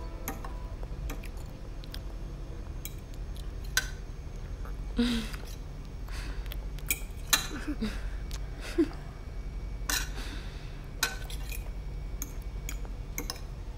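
Knives and forks clinking and scraping on plates at a meal table, a few scattered clinks at a time over a low steady hum.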